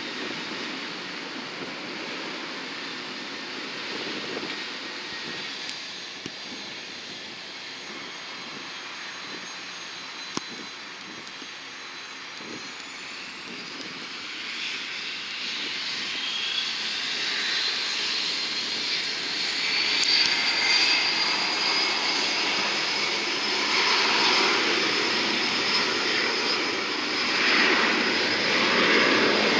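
Jet aircraft engines: a steady distant rush, then about halfway through a high whine rises in pitch, levels off and holds while the engine noise grows louder.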